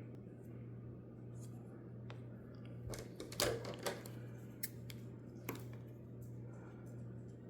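Small handling noises of hands working with double-sided tape and a small plastic part: a cluster of clicks and scrapes about three seconds in, then a couple of single clicks, over a steady low hum.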